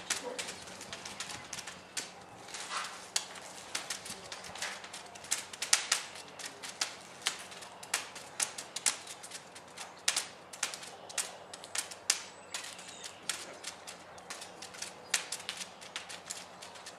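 Irregular sharp clicks and taps, several a second, with no playing or speech.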